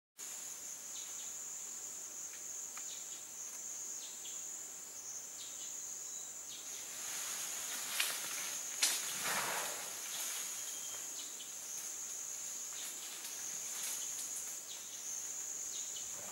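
Steady high-pitched drone of insects in the forest. Two sharp clicks come about eight seconds in, inside a brief spell of louder rustling.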